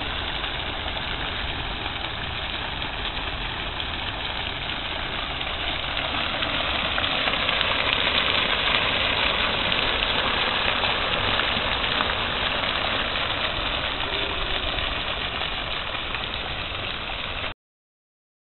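Fountain jets spraying and splashing into a stone basin: a steady rushing hiss with a low rumble beneath, growing louder about eight to ten seconds in and cutting off abruptly near the end.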